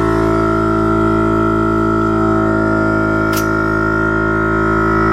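VIAIR 400P portable 12-volt air compressor running under load, inflating a tire through its trigger wand: a loud, steady, buzzing motor drone.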